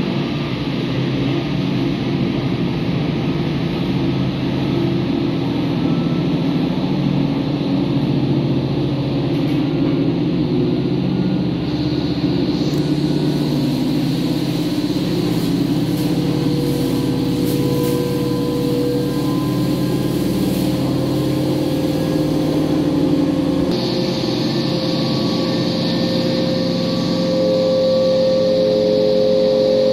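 Steady motor drone. Its tone shifts abruptly about 12 and 24 seconds in.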